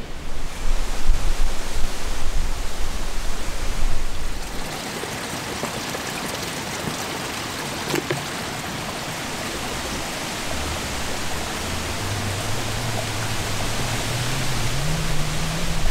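A gusty rumbling noise for the first few seconds, then steady running water from a mountain spring. Later a plastic bottle fills under the flow, and the hollow tone of its shrinking air space rises in pitch as it fills.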